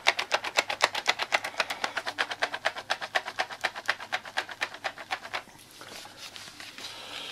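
Ink cartridge for an Epson F2100 DTG printer being shaken by hand: a fast, even rattle of about eight clicks a second that stops about five and a half seconds in.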